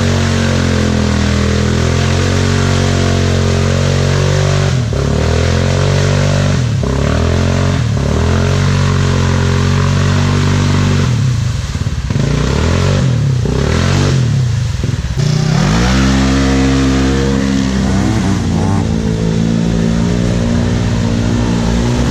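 Off-road side-by-side or ATV engine running hard, revving up and down again and again, easing off in the middle and then revving up strongly.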